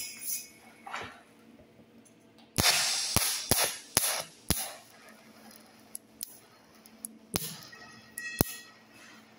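TIG (argon) welding torch being triggered at a stainless steel tube joint: a sudden burst of hiss and a run of sharp snaps and clicks as the arc is struck, then a faint hiss.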